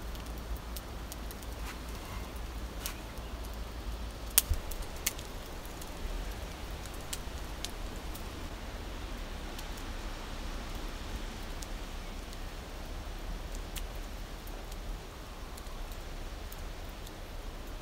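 Small wood fire just lit, crackling, with scattered sharp pops over a steady hiss; the loudest pop comes about four and a half seconds in.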